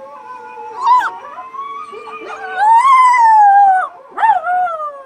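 Dogs howling, several voices overlapping in long drawn-out calls. The loudest call rises and then falls about halfway through, and a shorter howl follows near the end.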